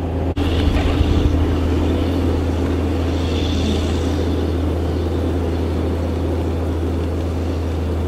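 Tractor engine running steadily, a constant low drone.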